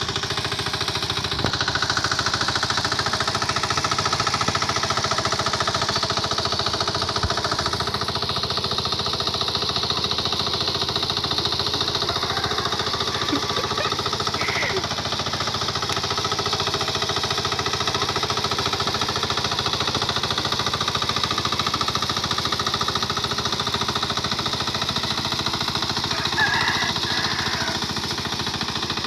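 A small engine running steadily, with a rapid knocking beat.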